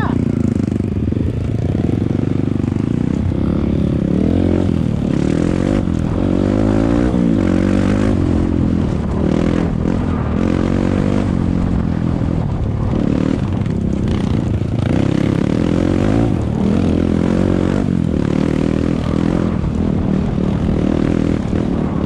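Single-cylinder trail bike engine running under load on a dirt climb, its revs rising and falling every second or two as the rider works the throttle.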